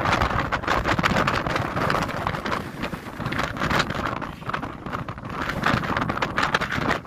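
Wind buffeting the microphone: a rough, gusty noise that swells and dips unevenly.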